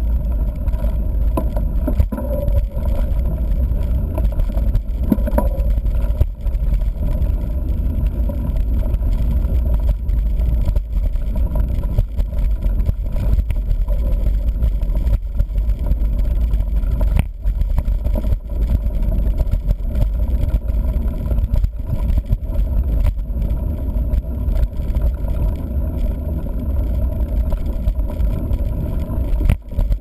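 Mountain bike riding a dirt trail, heard through a GoPro mounted on the bike: a steady low rumble of wind and tyre noise, with sharp knocks and rattles as the bike jolts over bumps.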